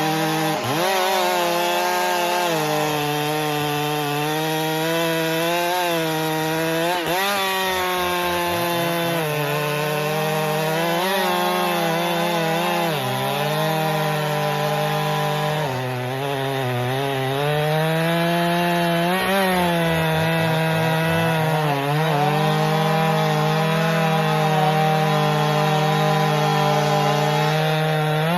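Two-stroke chainsaw running at high revs while cutting firewood. Its pitch sags and recovers several times as the chain loads up in the wood.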